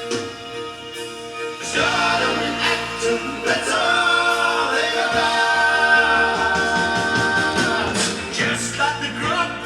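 A vinyl record playing on the turntable: vocal music with a choir singing, swelling louder about two seconds in.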